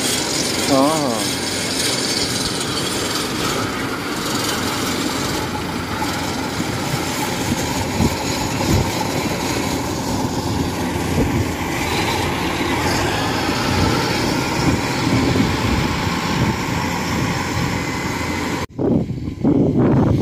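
Engine of a tracked rice-hauling cart running steadily under way, mixed with the rasping, rattling noise of its crawler tracks running over rice stubble. The sound cuts off suddenly near the end.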